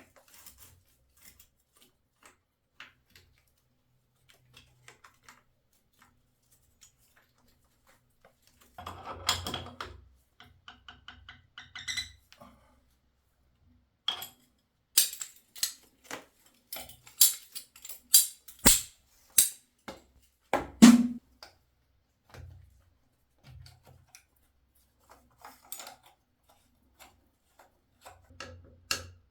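Irregular sharp clicks, taps and knocks of hard objects being handled, with a scuffing, squeaky patch about nine seconds in and a quick run of louder clicks a few seconds later.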